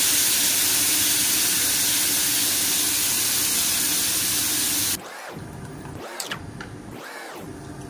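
Milkfish and sauce sizzling on a hot cast-iron sizzling plate: a loud, steady hiss that cuts off suddenly about five seconds in, followed by quieter background music with a regular beat.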